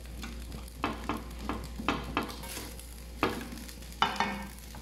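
A spatula scraping and tossing garlic fried rice in a wok, in about eight irregular strokes, over a light sizzle of the rice frying.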